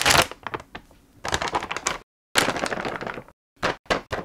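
A small packet crinkling and rustling as it is opened and powdered pancake mix is shaken out of it into a bowl. It comes in several short, crackly bursts, the loudest right at the start, broken by abrupt silences.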